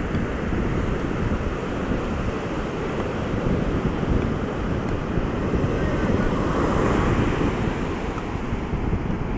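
Atlantic surf breaking and washing up a sandy beach at high spring tide, a steady rushing hiss that swells for a couple of seconds about six and a half seconds in. Wind buffets the microphone underneath with a gusty low rumble.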